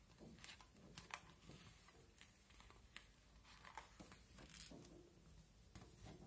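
Faint rustling and soft taps of a hardcover picture book being handled: its pages are turned, then the book is closed and turned over.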